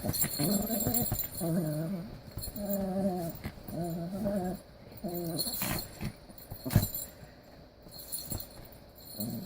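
Small Pomeranian growling in play while tugging at its stuffed toy: a run of wavering growls over the first six seconds or so, then a couple of sharp knocks and quieter sound to the end.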